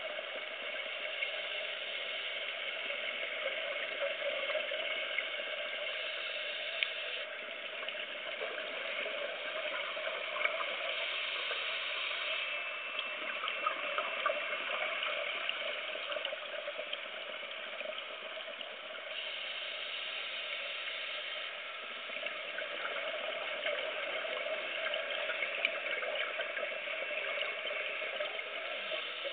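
Underwater ambient noise: a steady hiss dense with small crackles and clicks.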